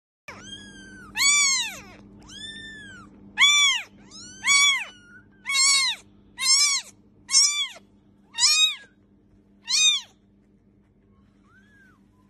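A very young kitten mewing over and over: about ten high-pitched mews, each rising and falling in pitch, roughly one a second, the last one faint.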